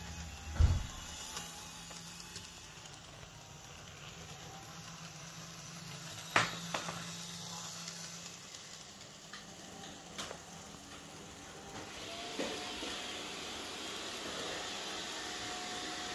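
Steady hiss of room noise with a low hum, broken by a few sharp knocks and clicks from handling. The hiss grows louder about twelve seconds in.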